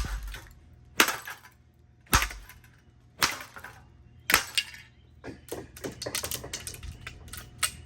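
Aluminum broom handle striking a ceiling fan, five sharp metallic blows about a second apart, each with a short ring. About five seconds in, a quicker run of lighter clattering knocks follows.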